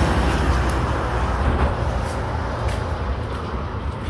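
Road traffic: a passing motor vehicle's road noise with a low rumble, slowly fading away.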